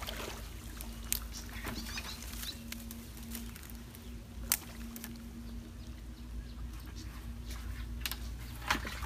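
Water splashing and sloshing as a person wades out of a shallow stream and steps up the bank, with three sharp knocks: about a second in, midway, and near the end. A steady low hum runs underneath.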